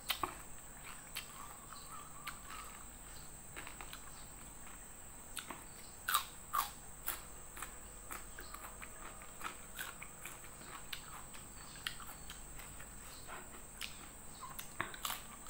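Close-up mouth sounds of a person eating rice and dried salted fish by hand: chewing and lip smacks, heard as scattered soft clicks, a cluster of louder ones about six seconds in. A steady high-pitched whine sits underneath throughout.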